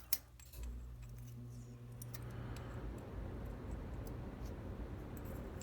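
Small metal lock parts handled on a desk: one sharp click about a tenth of a second in, then light metallic ticks over a low steady rumble as the lock's core is pushed out with a follower.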